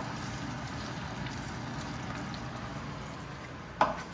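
Onion and tomato masala sizzling steadily in oil in a cooking pot, with a sharp clack near the end.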